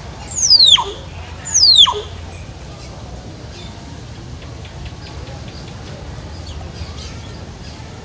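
Hill myna giving two loud whistles about a second apart near the start, each sweeping steeply down from very high to low.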